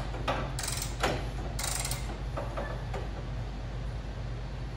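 Steel articulating arm of a Drill Buddy drill holder being swung around on its pivot bearings and clevis-pinned joints: a run of short, irregular metallic clanks and rattles, thickest in the first three seconds.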